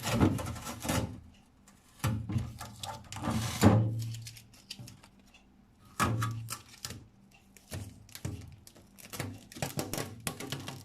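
Irregular knocks, thunks and scrapes from a boxed refrigerator and its packaging being handled, in several bursts with short quiet gaps.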